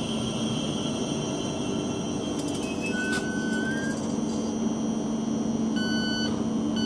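Thameslink Class 700 electric multiple unit standing at the platform, its equipment humming steadily with a high electronic whine. A single electronic tone sounds about three seconds in, and a shorter beep just before the end.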